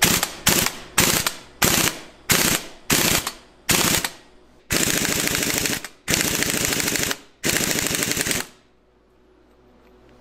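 Air impact wrench hammering on the centre bolt of a crank pulley puller on a Ford 5.0 V8. It first gives a quick series of short blips about half a second apart, then three longer runs of about a second each, and stops shortly before the end.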